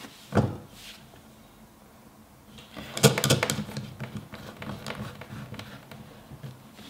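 Handling noise from a whetstone in a stone holder on a wooden table: a knock about half a second in, then a cluster of clicks and taps starting about three seconds in as the holder's clamp knobs are turned to lock the stone.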